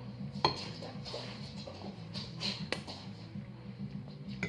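A few sharp clinks of cutlery on crockery, with scraping in between as a knife works on a plate, over a low steady hum.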